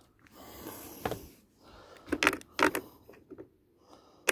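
Plastic housing of a Philips Performer Pro canister vacuum cleaner being handled during disassembly: a short scraping rustle in the first second, then two sharp plastic knocks a little after two seconds in and a click at the end.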